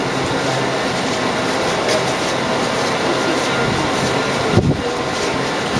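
Steady machinery hum and rushing noise of a subway car maintenance shop, with a brief low thump about four and a half seconds in.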